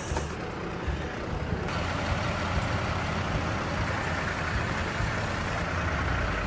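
Steady rumble of an idling vehicle engine, with no distinct knocks or other separate sounds. The background shifts slightly about two seconds in.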